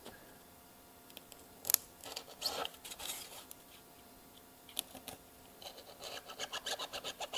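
A cutter blade scraping and slicing through a thin XPS polystyrene foam strip: a few faint single scrapes, then a quick run of short scratching strokes near the end.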